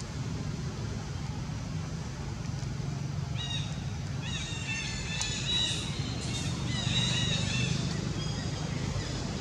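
Series of short, high-pitched chirping calls starting about three seconds in, over a steady low hum.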